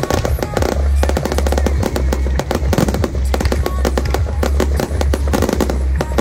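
A fireworks display: dense, rapid popping and crackling from ground fountains and bursting aerial shells, over music with a steady deep bass.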